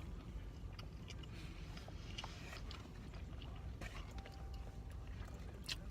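Quiet eating of a chicken sandwich: soft chewing with scattered small clicks and rustles of handling the food, over a steady low rumble.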